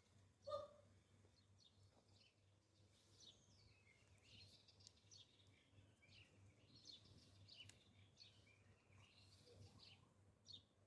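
Faint chirping of small wild birds, many short high calls one after another, over a low steady hum. A single brief, louder note comes about half a second in.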